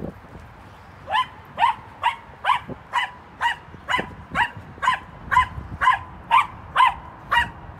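A dog barking repeatedly in a steady rhythm, about two sharp, high-pitched barks a second, starting about a second in.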